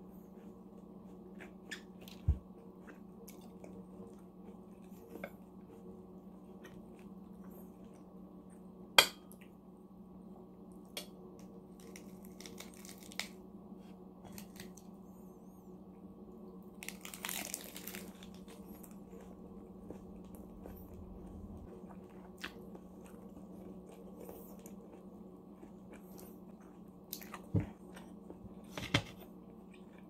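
Close-up eating sounds: a bite of a crisp iceberg lettuce wrap crunched and chewed, loudest about halfway through, with a few sharp clicks of bottle and dishes. A steady low hum runs underneath.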